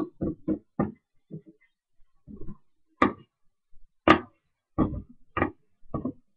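Cardboard package being handled and worked open by hand: a run of short, uneven knocks, scrapes and rips, with the two sharpest about three and four seconds in.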